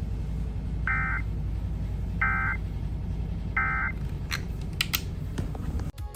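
Emergency Alert System end-of-message signal: three short, identical digital data bursts about 1.3 seconds apart, the SAME 'NNNN' code that closes a broadcast weather warning, over a steady low radio hum. A few faint clicks follow.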